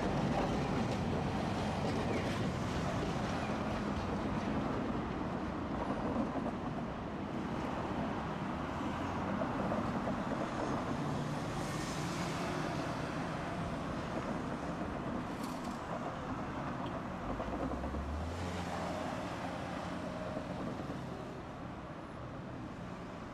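Street tram running along the street amid road traffic: a steady rumble with a low motor hum that shifts pitch about halfway through and slowly dies away near the end.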